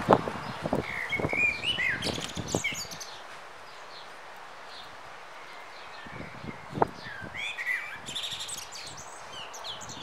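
Small songbirds chirping and warbling in short high phrases, over the first three seconds and again near the end. Scattered light clicks and taps come between them.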